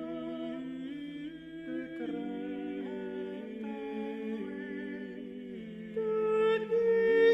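Unaccompanied male vocal ensemble singing slow polyphony in several parts: held notes moving together in chords. The voices swell louder about six seconds in.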